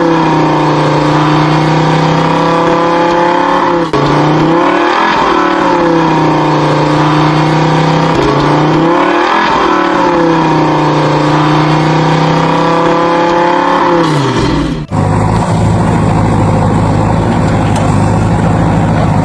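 Engine sound revving: a steady engine note whose pitch swings up and back down twice. About 15 seconds in it cuts abruptly to a different, lower, steadier engine drone.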